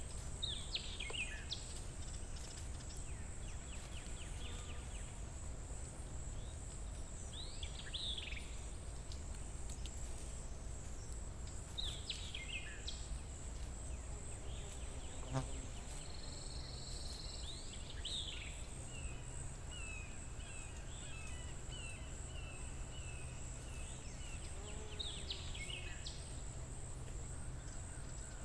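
Forest ambience: a steady high-pitched insect drone, with a bird repeating a short call that falls in pitch every few seconds, over a low steady rumble. A single sharp click sounds about halfway through.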